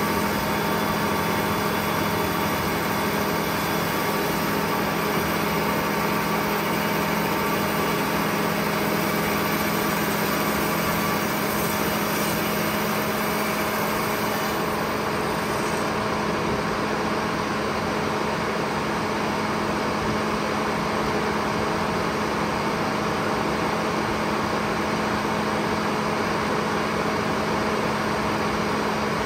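Lane No. 1 circular sawmill running steadily: a continuous engine and machinery drone that shifts slightly in tone about halfway through.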